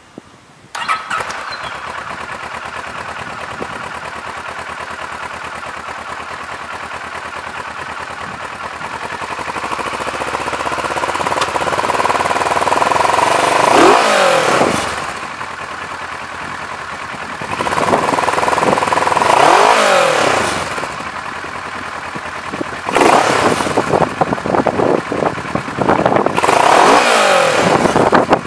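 2009 Kawasaki Versys 650's parallel-twin engine on its stock exhaust, with a highly modified intake, starting about a second in and settling to a steady idle. It is then revved four times, dropping back to idle between: first a slow climb, then a longer rev, then two sharp blips near the end.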